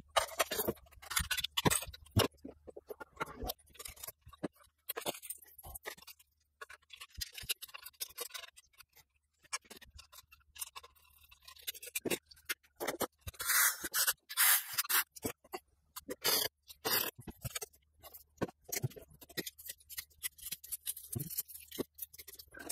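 Hands handling a plastic under-cabinet LED light fixture and its parts: irregular clicks, knocks, and scraping and rustling of plastic, with a few louder spells of scraping a little past the middle.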